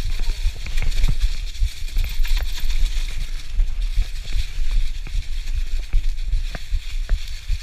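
Mountain bike rolling along a leaf-covered dirt trail, heard through a GoPro: tyres hissing over fallen leaves, irregular sharp knocks and rattles from the bike over bumps, and a heavy low rumble on the microphone.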